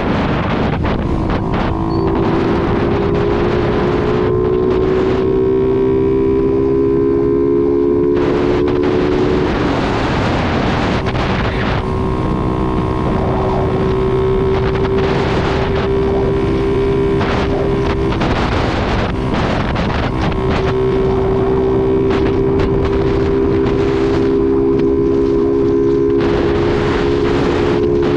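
Motorcycle engine running at a steady cruise under heavy wind noise on the microphone. The engine hum holds an even pitch, fading back briefly twice along the way.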